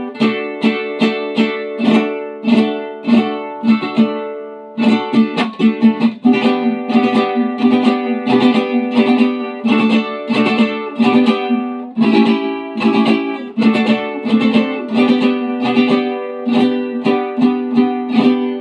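Mexican mariachi vihuela with a Spanish-style round soundhole and flamed red cedar body, strummed in a quick rhythmic chord pattern of several strokes a second, with a brief dip about four and a half seconds in and a few chord changes.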